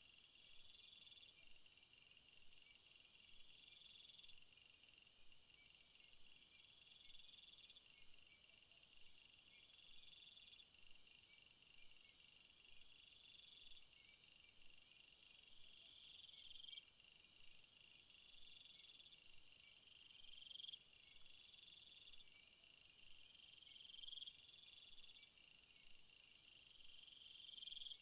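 Faint forest ambience of insects chirring: several overlapping high trills, one of them swelling and cutting off every two to three seconds while others pulse steadily above it.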